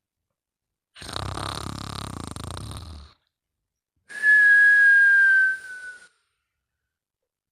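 A sleeping man snoring, one rattling snore of about two seconds, then a long whistle on the next breath that sags slightly in pitch. The whistle is the louder of the two.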